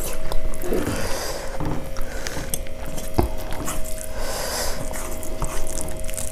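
Close-miked eating sounds: chewing and lip-smacking on soft khichuri, with fingers mashing rice on steel plates, made up of many small wet clicks. A faint steady hum runs underneath.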